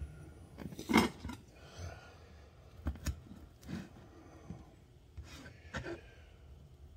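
Chef's knife cutting pepperoni slices in half on a plastic cutting board: a handful of scattered knocks of the blade on the board, the loudest about a second in.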